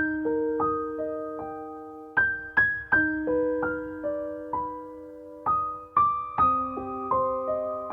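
Background music: a slow, gentle piano piece with chords and single notes struck and left to ring.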